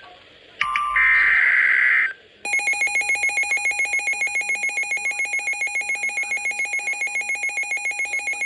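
Weather radio sounding a tornado warning alert: a loud, harsh data-like burst about a second long, then from about two and a half seconds in a shrill alarm beeping rapidly, about five beeps a second.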